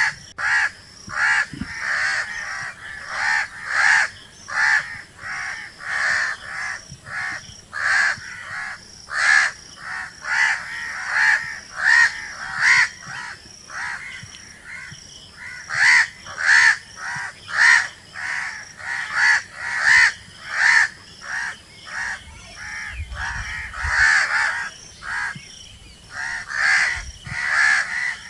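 Crows cawing over and over, short harsh caws coming about one to two a second without a break.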